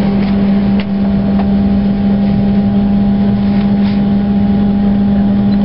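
Steady cabin drone inside a Boeing 767 during pushback: a strong low hum with a few fainter higher tones, unchanging in pitch, and a few faint clicks.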